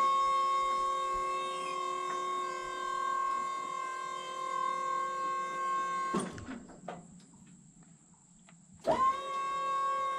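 JLG lift's hydraulic pump motor running with a steady whine as the platform rises. It winds down and stops about six seconds in, winds back up about three seconds later and cuts off again near the end.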